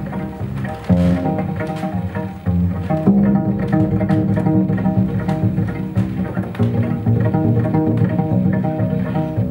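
Double bass played pizzicato, a melodic line of plucked low notes, in a live jazz duo setting.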